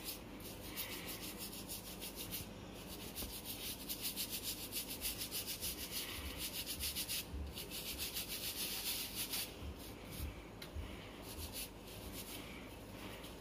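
Toothbrush bristles scrubbing the fine stainless-steel mesh of a tea strainer in quick back-and-forth strokes, with a few brief pauses, to scrub off tea stains.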